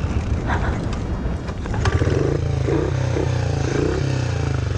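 Honda CRF50F's small single-cylinder four-stroke engine idling just after being kick-started, still cold and warming up. It runs steadily and gets somewhat louder about two seconds in.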